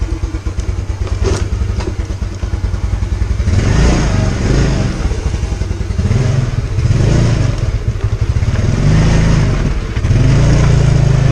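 Small motorcycle engine idling, then revving as the bike pulls away at low speed, the throttle opened and eased off several times before holding steadier near the end.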